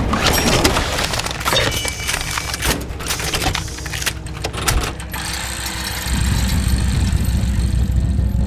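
Sound-designed mechanical effects for an engine animation: a rapid run of metallic clicks, clinks and clanks of moving gears and cams over a low hum. About six seconds in, a deep, steady engine-like rumble comes in and holds.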